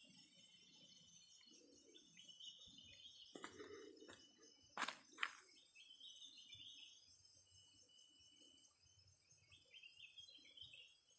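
Faint tropical rainforest ambience: birds chirping in short repeated phrases over a steady high-pitched drone. Two sharp clicks a fraction of a second apart about five seconds in.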